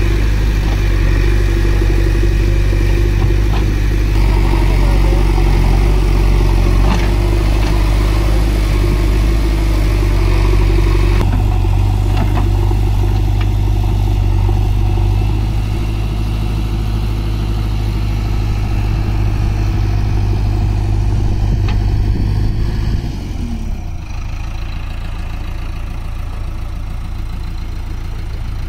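Heavy machinery diesel engine running steadily under working load, with a clattering undertone; near the end it slows and drops to a quieter run.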